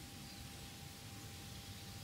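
Faint steady background noise: a low rumble and hiss with a thin steady high whine, and no distinct event.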